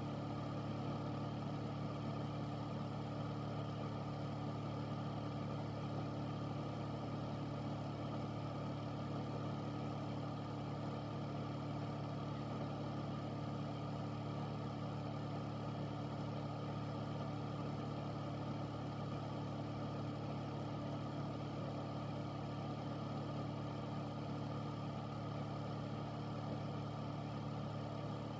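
Air purifier running steadily: a constant fan hum with a low drone under a whooshing rush of air.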